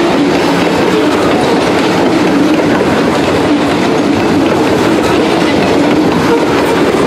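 Ore hopper cars of a freight train rolling past, steel wheels running steadily over the rails.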